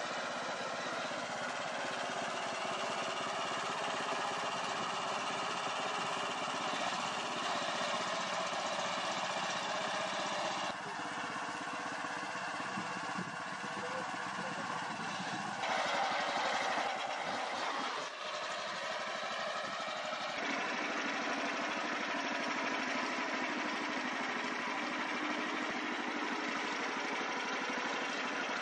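Mini tractor's small four-stroke petrol engine running steadily while the tractor pulls a two-furrow plough through the ground. The engine note shifts abruptly a few times.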